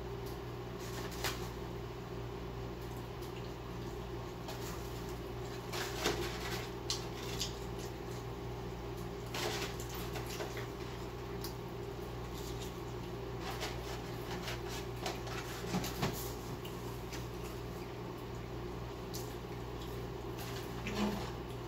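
Someone eating fast food: scattered short rustles and clicks from handling a paper fry carton, over a steady low hum.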